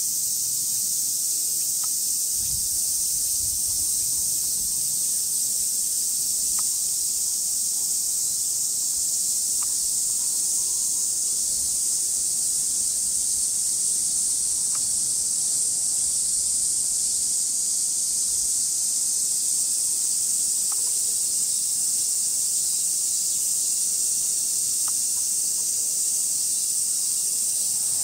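A steady chorus of cicadas: a dense, unbroken high hiss that never lets up, with a few faint clicks every few seconds.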